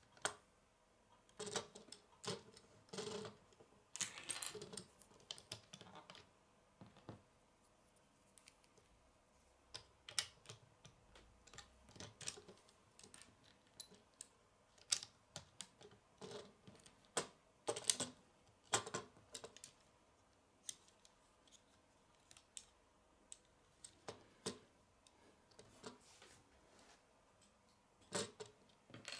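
Plastic Lego bricks clicking and snapping together as pieces are picked up and pressed onto a small model car, in scattered, irregular clicks with a short stretch of rattling about four seconds in.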